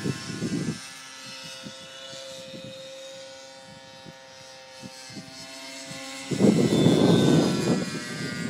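T-Rex 600 radio-controlled helicopter running with a steady whine from its motor and rotors. A loud low rumble joins it at the start and again from about six seconds in.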